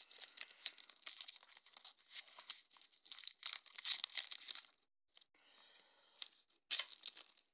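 Shiny plastic trading-card pack wrapper crinkling and crackling as hands pull the cards out of it, in many rapid crackles. It pauses briefly about five seconds in, then gives one more sharp crinkle near the end.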